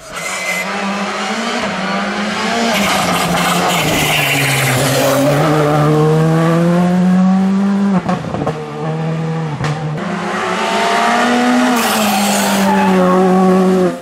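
Skoda Fabia R5 rally car's turbocharged four-cylinder engine driven hard: its pitch climbs under acceleration and drops back at gear changes and braking, over and over. A second pass starts abruptly about eight seconds in.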